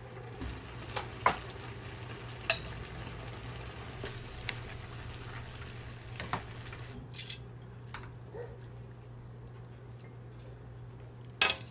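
Pork bulgogi and vegetables sizzling in a stainless steel wok, with a wooden spatula knocking and scraping against the pan now and then as it is stirred. A louder clatter of cookware comes near the end.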